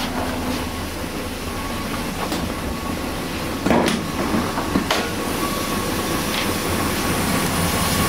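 Toyota Previa's little inline-four engine idling steadily and smoothly. Two sharp clacks, a little under four and five seconds in, as the hood is released and lifted.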